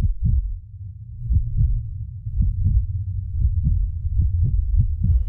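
Low heartbeat-style double thuds, about one pair a second, over a steady low rumble, coming a little faster toward the end: a cinematic heartbeat pulse used as a sound-design intro.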